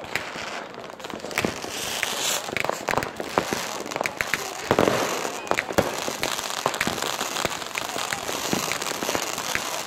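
Fireworks going off all around: many sharp bangs and crackles from exploding rockets and firecrackers over a steady hiss, with a louder cluster of bangs about halfway through.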